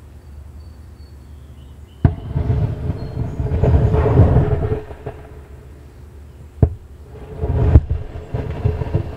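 18650 lithium-ion cells in thermal runaway rupturing inside a burn bag. A sharp pop about two seconds in is followed by a few seconds of loud rushing as the cell vents gas and smoke. Near the end a second pop brings another shorter rush of venting.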